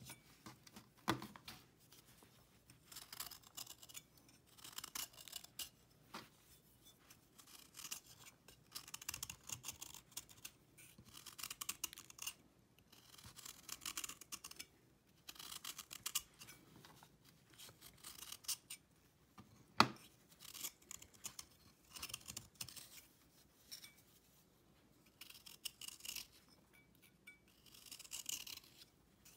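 Small kitchen knife shaving a dried cake of cleaning paste: a run of short scraping strokes, one every second or two. A sharp tap stands out about 20 seconds in.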